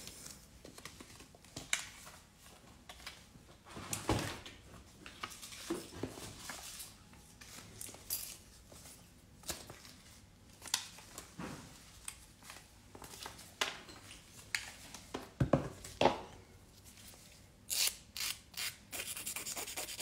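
Handling noises: gloved fingers rubbing and pressing on false nail tips, with scattered light taps and scrapes. A quick run of small clicks comes near the end.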